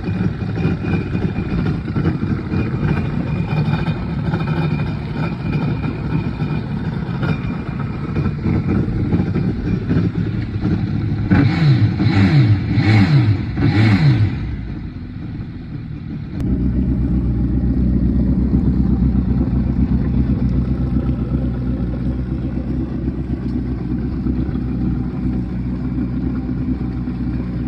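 Honda AquaTrax F-12X turbo watercraft engine idling, blipped four times in quick succession about halfway through. After a brief dip the sound switches abruptly to a louder, deeper idle, which compares the stock exhaust with the exhaust elbow deleted.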